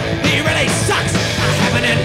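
Rock band playing loudly: electric guitar and drums.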